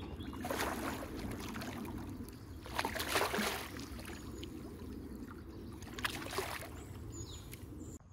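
Water splashing and sloshing as a hooked common carp thrashes at the surface and is drawn into a landing net. There are louder splashes about half a second in, around three seconds in and about six seconds in.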